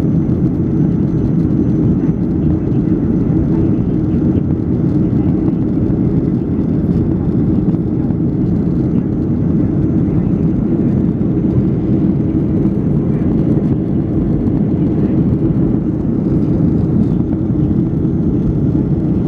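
Airliner cabin noise heard from inside the cabin: a steady, loud low rumble of the jet engines and airflow.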